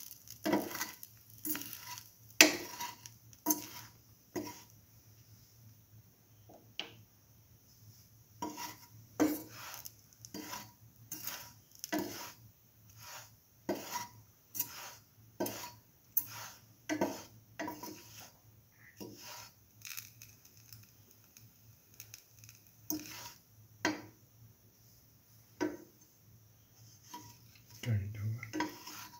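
A spatula knocking and scraping against a stainless steel frying pan as a bread sandwich is pushed around and turned, giving short clacks one or two a second with a pause in the middle. A faint sizzle of frying oil runs underneath.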